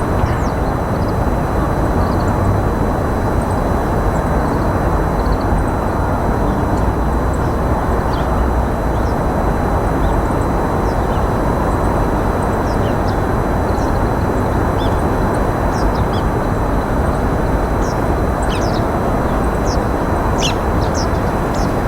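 Steady, loud outdoor rushing noise with short, high chirps of small birds scattered over it, more frequent near the end.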